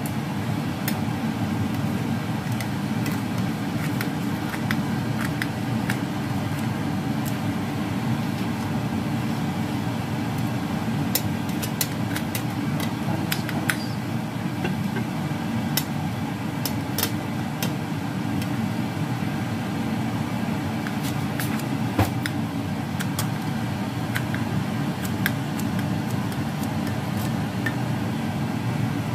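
Steady low rumble, with scattered short crisp clicks and crunches as kitchen scissors snip through a crispy fried glutinous-rice-flour pancake.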